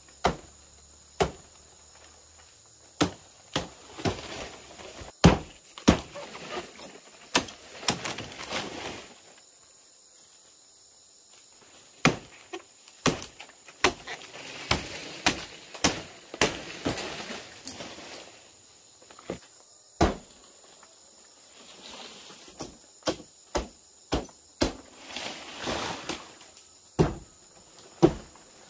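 Machete chopping at a fan palm's leaf stalks: a long run of sharp, irregular strikes with a short pause about a third of the way in. Fronds rustle after many of the strikes.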